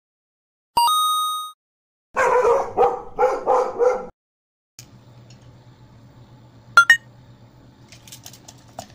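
A single bright chime, then five or six quick dog-like barks as an intro sound effect. After that a low steady hum, with a sharp double click near the middle as a brass UCO candle lantern is handled.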